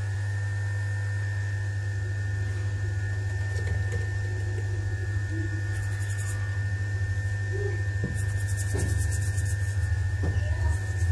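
Steady electrical hum with a thin high whine above it, from the repair bench's equipment. A light, rapid scratchy rustle comes in briefly about eight seconds in.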